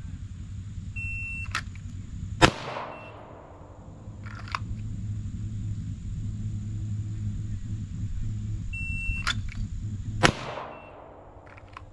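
Shot-timer start beep, then a single pistol shot about a second and a half later with a short echo. The same beep-then-shot rep comes again near the end, over a steady low rumble.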